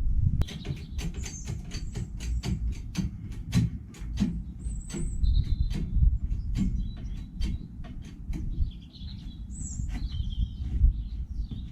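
Small birds chirping over a run of sharp ticks or taps, about five or six a second for the first few seconds and then sparser, with a steady low rumble underneath.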